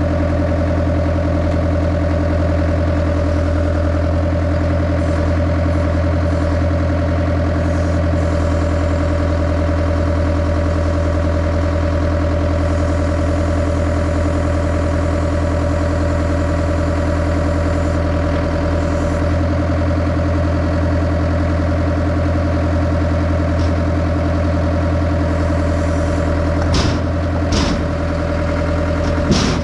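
Morooka forwarder's diesel engine idling steadily just after a cold-morning start. A few short knocks sound near the end.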